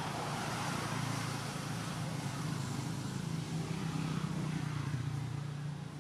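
Steady low hum of a motor vehicle's engine running, with a noisy wash above it. It grows a little louder during the first second.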